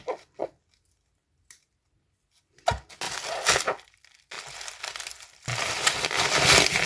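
Packaging being torn open and crinkled by hand: a few short rustles, a gap of about two seconds, then steady crinkling and tearing that grows louder toward the end.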